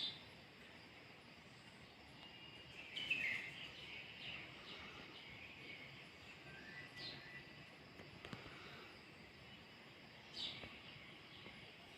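Birds chirping now and then over a faint steady background hiss. A louder cluster of chirps comes about three seconds in, with short single calls near seven and ten and a half seconds.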